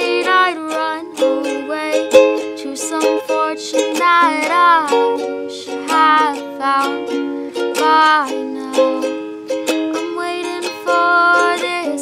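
Ukulele strummed in a steady rhythm, with a young woman singing over it.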